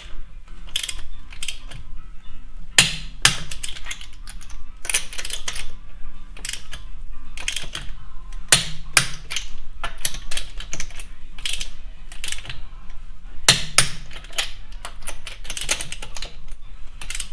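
Click-type torque wrench ratcheting wheel lug nuts tight in a star pattern: repeated sharp ratchet clicks in clusters, with the wrench clicking off as each nut reaches 100 foot-pounds.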